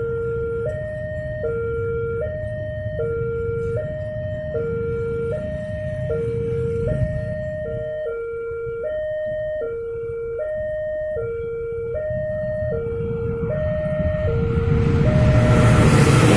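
Indonesian railroad level-crossing warning siren, newly fitted, sounding a steady two-tone hi-lo alternation that switches about every 0.8 s. It cuts off near the end as the rumble of an approaching train swells and becomes the loudest sound.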